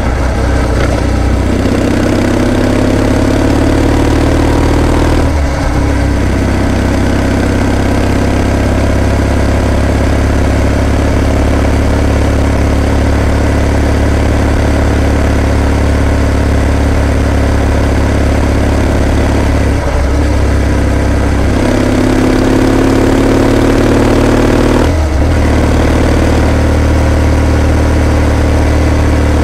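Kawasaki W650 air-cooled parallel-twin engine running on the move, rising in pitch as it accelerates, with short breaks at gear changes about five, twenty and twenty-five seconds in.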